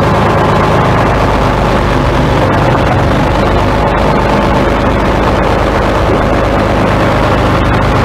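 Old John Deere four-wheel-drive tractor's diesel engine running steadily as the tractor is driven slowly forward.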